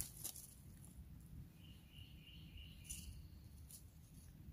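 Near silence in the forest: a low background rumble, with a faint, steady high-pitched animal call starting about a second and a half in and lasting about a second and a half, and a few faint ticks.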